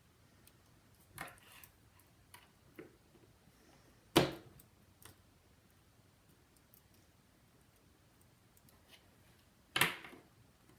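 Small repair tools and phone parts being handled, giving scattered light clicks and taps. Two sharper knocks come about four seconds in and near the end.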